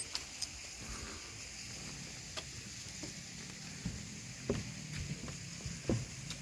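A few scattered footsteps knocking on the wooden planks of a lookout deck, over a steady high outdoor hiss.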